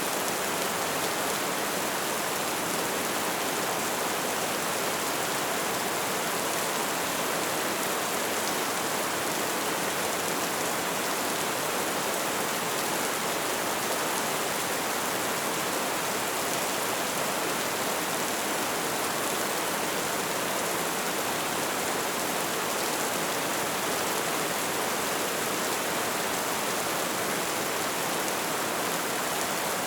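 Steady rain falling: an even, unbroken hiss with no single drops or thunder standing out.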